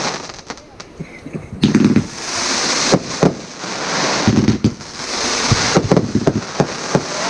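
Aerial fireworks going off: a run of sharp bangs and pops that comes thickest near the end, over a steady hiss.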